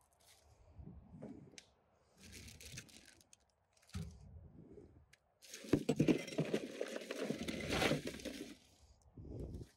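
Crinkling, rustling and tearing of handled material in several short bursts, with the longest and loudest stretch from about five and a half to eight seconds in.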